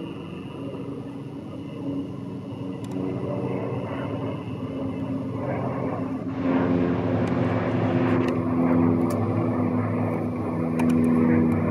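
Light propeller aircraft flying low overhead in formation, their piston engines and propellers making a steady pitched drone that gets clearly louder about halfway through as the planes come closer.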